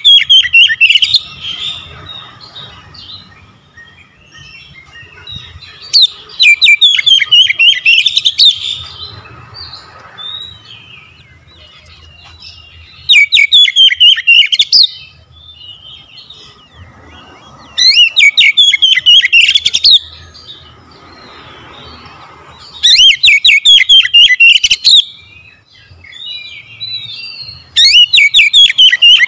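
Oriental magpie-robin singing: six loud phrases of rapid, chattering, whistled notes, each about two seconds long, coming roughly every five seconds, with a few faint calls in the gaps.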